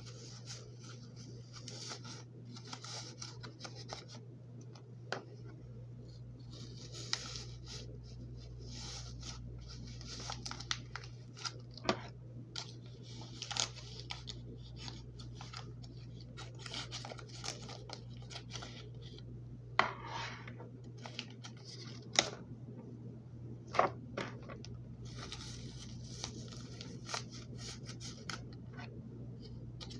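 Paper and stuffing rustling, scratching and crinkling as stuffing is pushed into a hollow paper squishy pencil, with many small clicks. About two-thirds of the way through come three sharp taps.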